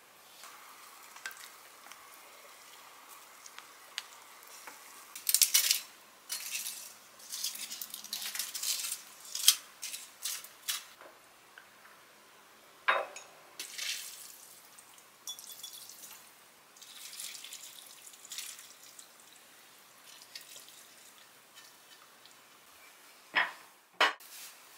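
Crisp fried rice-paper pieces crackling and rustling as they are lifted off a wire cooling rack onto a plate, then light clinks of dishes, with two sharp clinks near the end.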